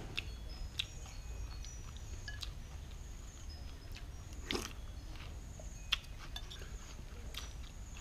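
Someone eating noodle soup with chopsticks: faint chewing, with a few light clicks of the chopsticks against the bowl.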